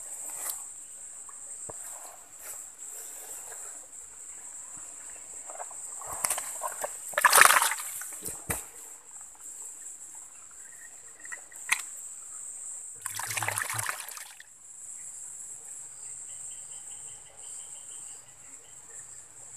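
Steady high-pitched insect buzz, with a few short splashes and rustles of a hand working in a small water-filled hole, the loudest about seven seconds in and another around thirteen seconds in.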